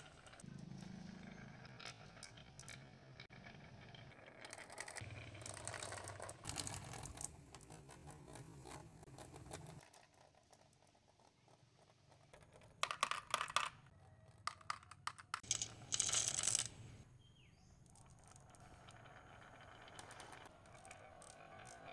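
Marbles rolling down marble-run ramps with a low rumble, then a burst of rapid clattering clicks about thirteen seconds in as they knock against each other and the track, with another short roll just after.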